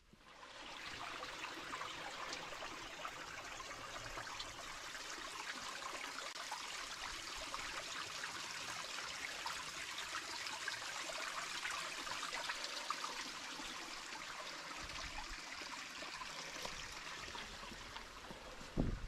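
Running water of a small stream, a steady trickling rush that starts abruptly just after the beginning. A low thump near the end is the loudest moment.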